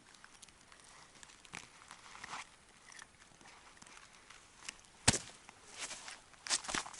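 Scattered crunches and clicks on an ice-fishing spot, with one sharp knock about five seconds in and a cluster of crunching near the end.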